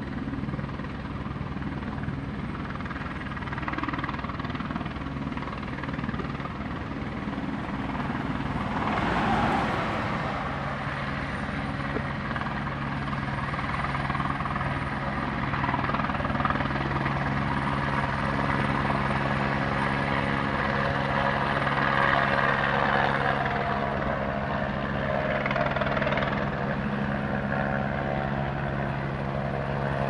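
Helicopter rotor and turbine engine running steadily close by, a continuous low hum under the whirr of the blades. The rotor noise swells about nine seconds in and again later.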